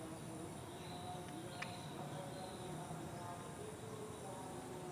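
Outdoor woodland ambience: insects drone steadily at a high pitch, with faint short tones lower down and one sharp click about a second and a half in.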